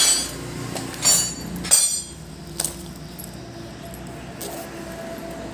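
Steel adjustable wrenches clinking against each other as they are handled and set down on a wooden bench: three sharp metallic clinks with a short ring in the first two seconds, then only a faint steady hum.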